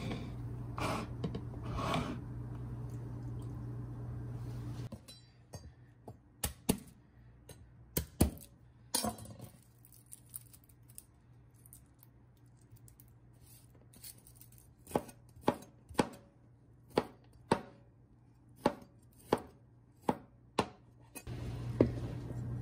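Knife chopping garlic cloves on a cutting board: sharp knocks, scattered at first, then a steady run of about two a second. A steady low hum fills the first few seconds.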